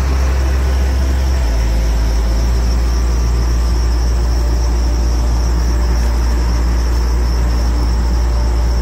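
Off-road 4x4 engine running steadily close by, a deep low hum whose pitch steps up slightly about one and a half seconds in, with a steady high chirring of crickets over it.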